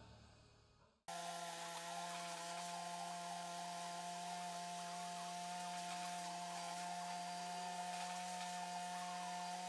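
Oxy-acetylene welding torch with a small 30 l/h tip, burning with a steady hiss and hum that starts abruptly about a second in.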